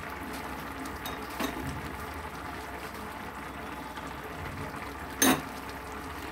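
Spatula stirring thick, curdling milk and melted ghee in a metal pot over the heat, with a low steady frying-and-bubbling sound and light scraping. A single sharp knock of the spatula against the pot comes about five seconds in.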